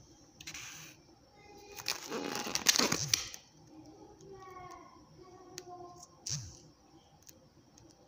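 Plastic packaging crinkling and rustling as fruit is handled, loudest for about a second and a half near the middle, with a shorter rustle just before; faint voices in the background.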